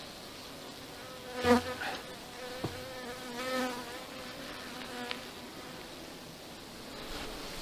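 Honeybees buzzing around an open hive: a steady hum, with a loud buzz about one and a half seconds in and another around three and a half seconds in.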